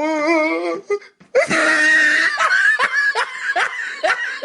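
Laughter: a long wavering laugh, then after a brief break about a second in, more laughing in short repeated pulses.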